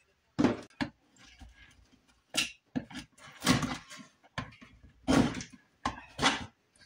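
Glued-on doors being pried off a small wooden model stove by hand: a series of about eight short scrapes and knocks, with a couple of them a little longer.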